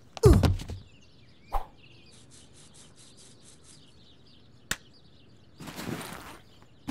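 Cartoon Foley over faint background birdsong. A loud thud with a falling pitch sounds as the boy is knocked to the ground, followed by a smaller knock and a quick run of about nine high ticks. Near the end there is a rustling burst as the bully grabs the schoolbag.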